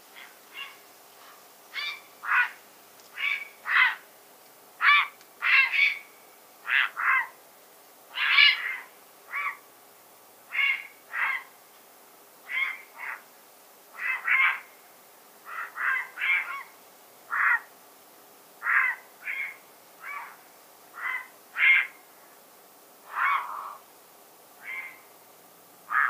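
Grey heron giving a long series of short croaking calls, about one a second, some in quick pairs.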